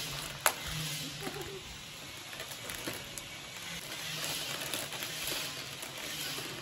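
Lay's crisp packets being torn open and crinkled by hand, with a sharp crack about half a second in.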